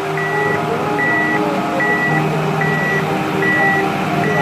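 A heavy vehicle's reversing alarm beeping steadily, about six high beeps evenly spaced, over the vehicle's engine running.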